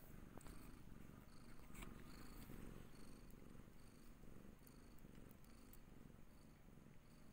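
Mother cat purring faintly as her newborn kittens nurse, a low rumble that swells and fades in a slow, even rhythm, with faint short high ticks repeating through it.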